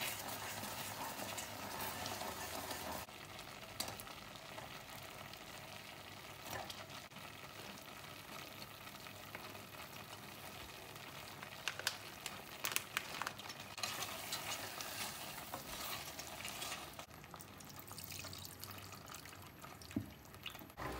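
Pasta in a thick milky cheese sauce simmering in a pot on the stove, with a spoon stirring and scraping in it. There is a cluster of sharp clicks and taps a little past the middle, and milk is poured in near the end.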